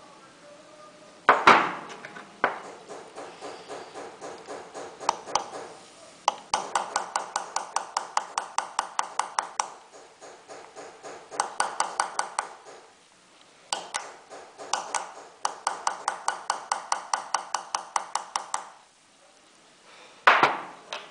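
Engraving tool being tapped into a silver plate with a small hammer, in quick, even runs of about six metallic taps a second with short pauses between runs. Two louder knocks with ringing come about a second in and near the end.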